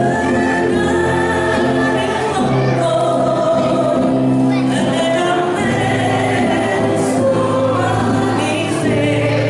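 A group of adult voices singing an Ambonese folk song together over backing music, steady and loud, with sustained notes.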